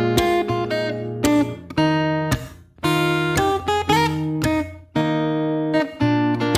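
Background music: guitar chords strummed and plucked.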